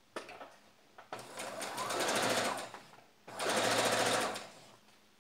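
Computerized electric sewing machine stitching white piping onto cotton fabric in two runs, the first building up over about a second, with a short pause between them. A few small clicks come just before the first run.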